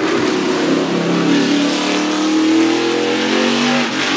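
NASCAR stock car's V8 engine at full throttle, its pitch climbing as the car accelerates, then levelling off, with a brief drop in pitch and level near the end.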